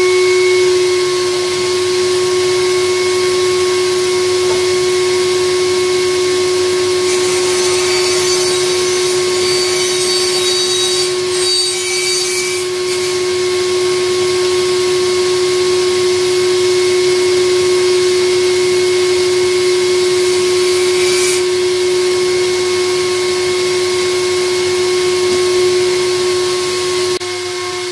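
Bandsaw running with a steady whine. From about seven seconds in to about twenty-one seconds, the blade rips a board along the fence and adds a hiss of cutting wood.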